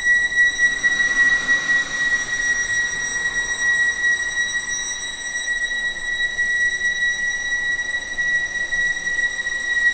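Horror-style ghost sound effect: a steady, high-pitched whine holding one pitch without wavering, with a faint hiss swelling briefly about a second in.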